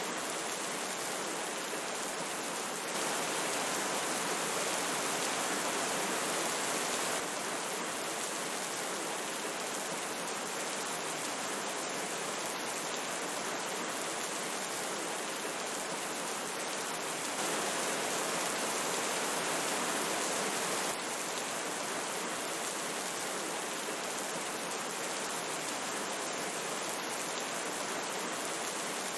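Steady hiss of rain together with a flowing river, an even wash of water noise. It steps up slightly louder twice, about three seconds in and again past the halfway mark, each time dropping back suddenly a few seconds later.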